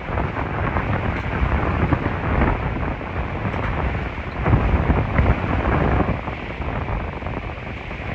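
Hurricane winds gusting against the microphone: a rough, rumbling rush that swells and eases, strongest about four and a half seconds in.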